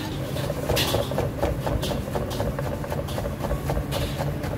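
A kitchen knife slicing a tomato on a wooden chopping board: a quick, irregular series of knocks as the blade meets the wood, over a steady low mechanical hum.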